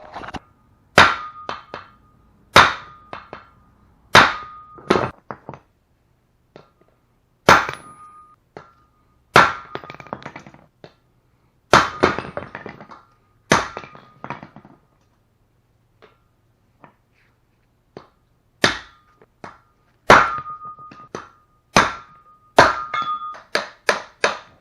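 Steel hammer blows on a driveshaft U-joint, knocking a bearing cap out of the yoke while a socket supports it. Each blow rings briefly. They come in irregular bunches, with a lull past the middle and a quick run of strikes near the end.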